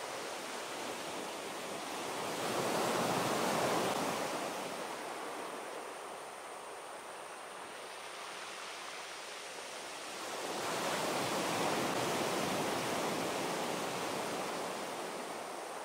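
Sea waves breaking on a beach: two waves swell up and fade away, about eight seconds apart, over a steady hiss of surf.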